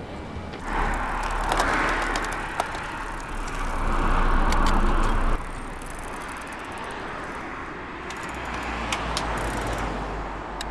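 Road bicycle rolling fast on an asphalt path: steady tyre and air noise that cuts off abruptly about five seconds in. A quieter stretch follows, with a few light clicks.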